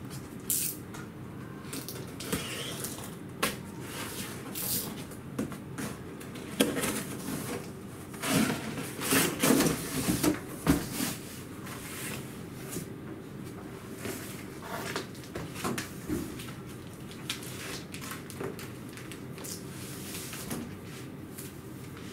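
Cardboard laptop packaging being opened and handled: box flaps and the inner cardboard tray scraping, rustling and knocking, with the laptop drawn out of its foam sleeve. A run of irregular knocks and scrapes, busiest about eight to eleven seconds in.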